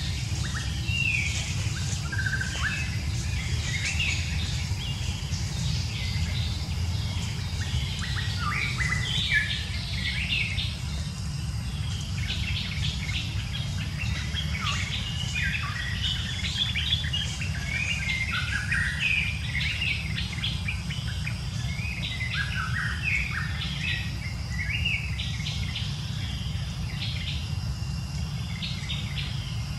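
Birds chirping: many short, overlapping calls and quick pitch glides over a steady low rumble.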